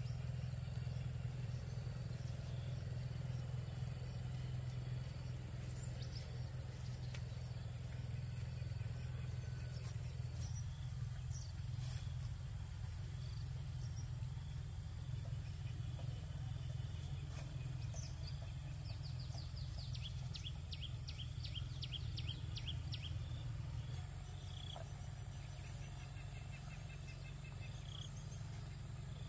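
Outdoor ambience: a steady high insect drone with scattered bird chirps and a fast run of repeated chirps about two-thirds of the way through, over a steady low rumble.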